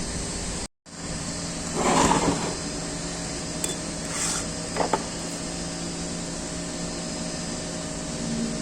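Workshop tool sounds on metal parts: a short scraping clatter about two seconds in, then a few light knocks, over a steady background hum.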